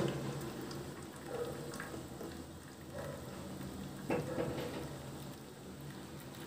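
Hot water pouring in a thin stream from an electric kettle into a large aluminium tray around bowls of milk: a faint steady trickle, with a light knock about four seconds in.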